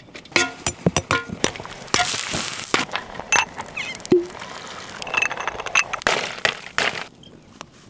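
Glass clinks and knocks as a glass bottle and tumbler are handled, then whisky being poured from the bottle into the tumbler, with several sharp cracks and knocks.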